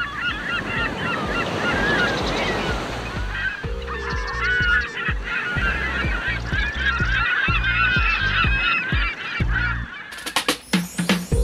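A flock of geese honking in many overlapping calls. A low pulsing electronic beat joins about four seconds in, and the music takes over near the end.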